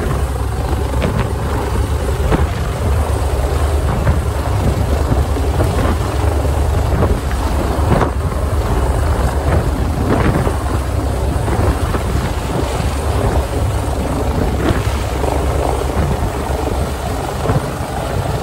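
Air-ambulance rescue helicopter flying low overhead, its rotor and turbine engines making a loud, steady, deep rumble. The rotor downwash buffets the microphone.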